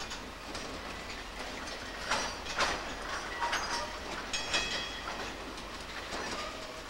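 Wamu 80000 two-axle boxcars rolling slowly during shunting, their wheels clacking irregularly over rail joints, some clacks with a brief high metallic ring.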